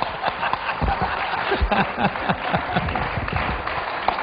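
A congregation laughing at a joke, with scattered hand claps and the preacher laughing into his microphone.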